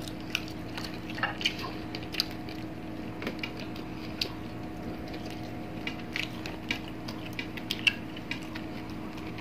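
Close-up eating sounds: scattered soft clicks and wet smacks of chewing, and fingers picking flesh off a fried moonfish on a plate, over a faint steady hum.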